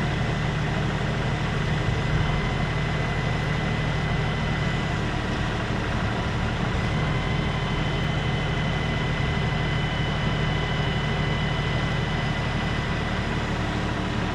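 Tractor engine running steadily with a thin, steady whine over it.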